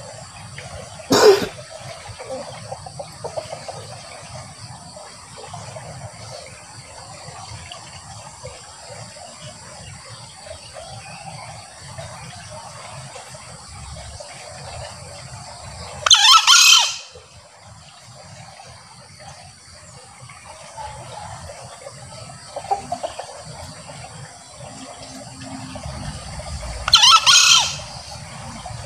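Male green junglefowl crowing three times, each a short, shrill, hoarse crow under a second long, about 15 and then 11 seconds apart, over a steady background hiss.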